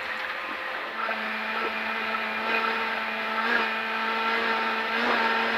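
Skoda Fabia Rally2's turbocharged four-cylinder engine heard from inside the cabin, pulling hard flat out on a gravel stage; its steady high-revving note settles in about a second in and climbs slightly, over a steady hiss of tyres on gravel.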